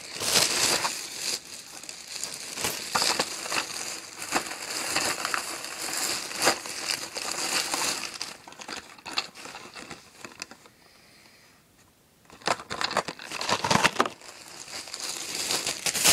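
Plastic bags being crumpled and rustled by hand, a dense crinkling that drops away for a couple of seconds about two-thirds through and then starts again.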